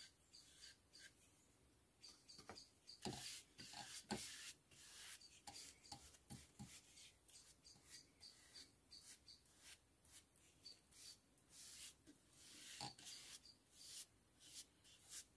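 Faint swishes of a paintbrush working varnish into a wooden scooter footboard, stroke after stroke at an uneven pace, with a few light knocks.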